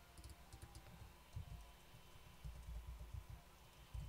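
Faint computer keyboard typing and mouse clicks: a few scattered light clicks with soft low thuds.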